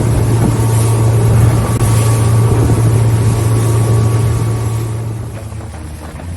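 Motorboat engine running steadily with a constant low hum, under a rush of water and wind noise; the sound fades down about five seconds in.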